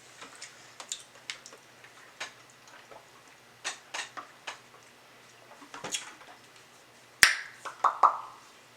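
Close-miked eating of crispy fried chicken wings: scattered crunches and mouth clicks, with one sharper, louder crack about seven seconds in.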